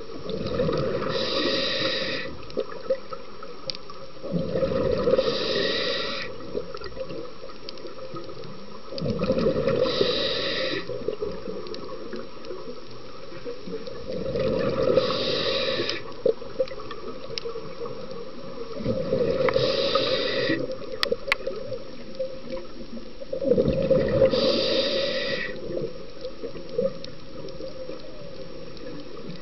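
Scuba diver breathing through a regulator underwater: six breaths, about one every five seconds, each a hiss with a rush of exhaled bubbles lasting about two seconds, over a steady underwater hiss.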